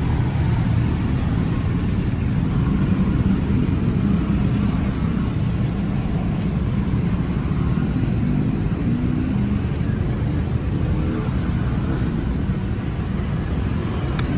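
Steady low rumble of road traffic, with faint crinkles of a thin plastic bag being opened and pulled over a drink cup.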